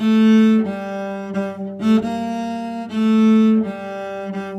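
Cello bowed in a slow run of held notes, repeated as a practice drill, with the louder notes at the start, about two seconds in and about three seconds in.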